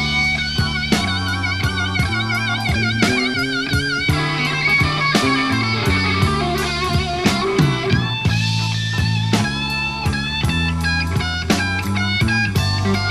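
Background rock music: electric guitar with wavering bent notes over bass and a steady drum beat.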